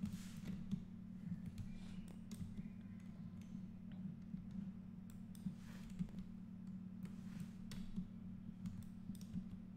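Computer mouse clicks, scattered and irregular, over a low steady hum.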